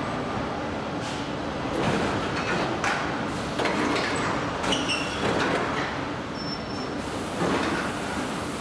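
Car-factory assembly-line noise heard from inside a bare van body shell as it rides the conveyor: a steady rumble with scattered metallic knocks and clatter, and a couple of short high squeaks near the middle.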